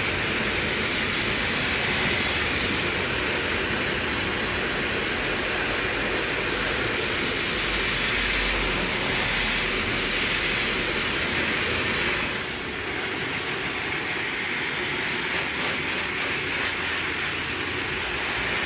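Handheld high-pressure cryotherapy gun blasting a cold gas jet onto a forearm: a loud, steady hiss that dips slightly about twelve seconds in.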